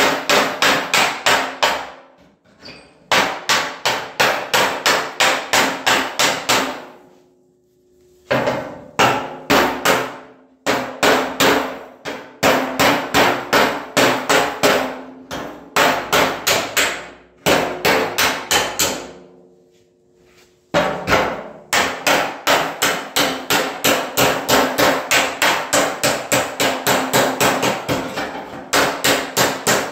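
Hammer-and-dolly work on the steel of a 1936 Chevrolet fender: quick runs of hammer blows, about five a second, broken by short pauses, with the sheet metal ringing under the strikes.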